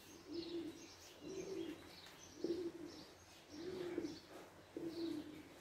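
Pigeon cooing faintly, five low coos about a second apart.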